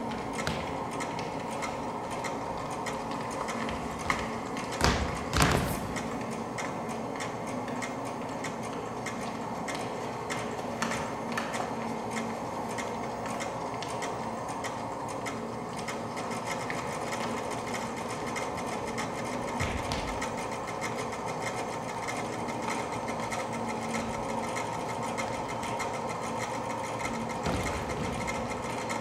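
A steady, fast mechanical rattle, like a small machine running, with a few louder knocks about five seconds in.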